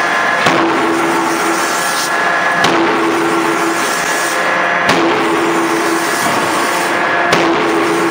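CNC hydraulic die forging hammer (125 kJ) striking a hot gear blank in the die: four sharp blows about two and a half seconds apart, each followed by a short steady hum, over steady noisy background.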